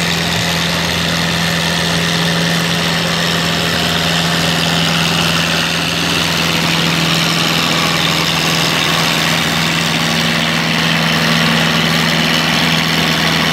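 Minneapolis-Moline farm tractor's engine running hard and steady under heavy load as it drags a tractor-pull sled down the track.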